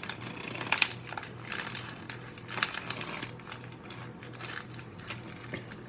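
Plastic packaging crinkling and crackling in irregular rustles as it is handled and squeezed, the loudest crinkles about a second in and again midway.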